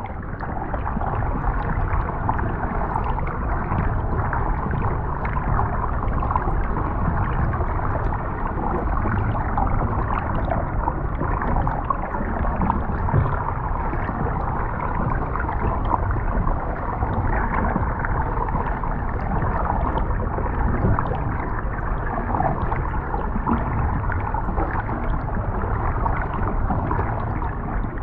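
Underwater ocean ambience recording: a steady, dense wash of water noise, heaviest in the low end and dull in the highs, with no distinct calls or strokes.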